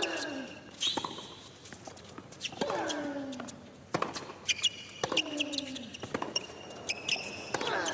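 Tennis rally on a hard court: racket strings striking the ball, with a player's loud grunt falling in pitch about every two and a half seconds as he hits, and short high sneaker squeaks on the court surface.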